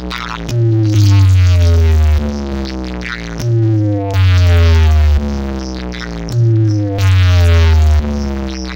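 Loud electronic dance music from a large DJ speaker stack. It repeats a cycle of about three seconds: a long, heavy bass note, then a quieter stretch, with synth tones sliding down in pitch.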